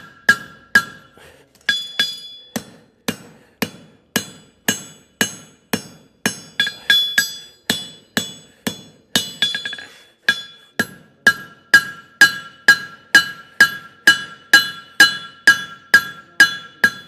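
Farrier's hammer striking a hot steel horseshoe heel on the anvil, drawing out a jar calk: a steady run of blows about two a second, each with a bright metallic ring.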